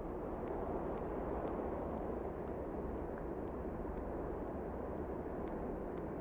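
A steady rushing noise with faint, regular ticks about twice a second.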